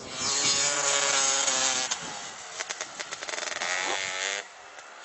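Motorcycle engine revving hard under load as it drives through deep snow, the pitch easing off slightly, then a stretch of clattering and a second rising rev that cuts off sharply about four and a half seconds in.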